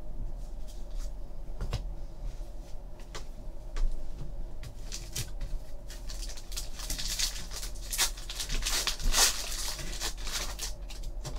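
Light clicks and slides of trading cards being handled, then a foil card pack crinkling loudly as it is picked up and torn open, with the crinkling densest in the last few seconds.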